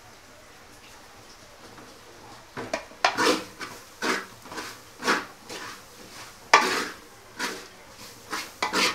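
Wooden spatula scraping and stirring in a metal cooking pot, mixing grated coconut into a fried onion-and-spice masala. The stirring starts about two and a half seconds in, in quick, uneven strokes.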